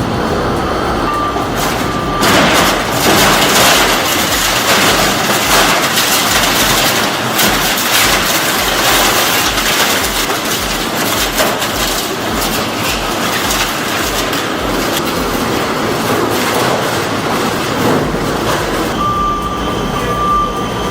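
Heavy industrial shredding machinery grinding and crashing loudly. A steady high beep sounds briefly near the start and again near the end.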